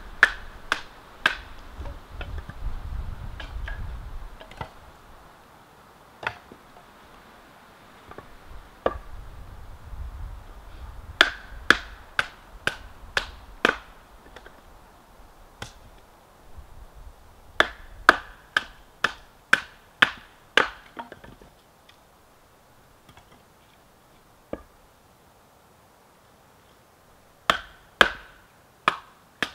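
Batoning firewood: a wooden baton knocking a blade down through dry, dense, previously burned hardwood. The sharp knocks come in quick runs of several strikes, separated by pauses and single knocks.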